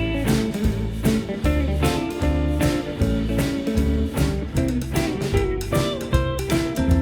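Background music: a guitar-led tune with a bass line and a steady beat.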